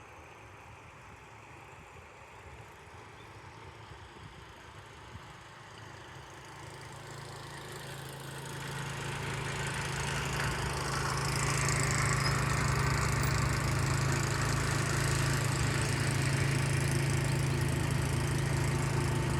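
A motor engine running with a steady low hum, growing louder from about six seconds in until it holds steady in the second half.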